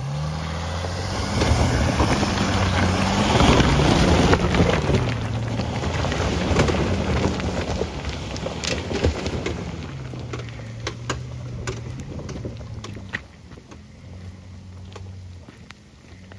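Jeep Grand Cherokee 3.0 CRD V6 turbodiesel pulling up a steep trail of loose stones, its revs rising and falling several times, with stones crunching and cracking under the tyres. It is loudest a few seconds in and fades as the Jeep climbs away.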